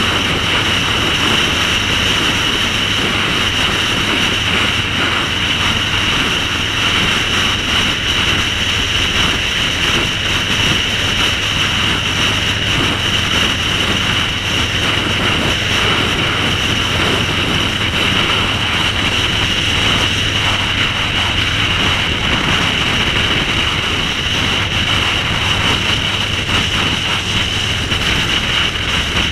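Cruiser motorcycle running steadily at road speed, with wind rushing over the microphone. Loud and even throughout, with no gear changes or revving.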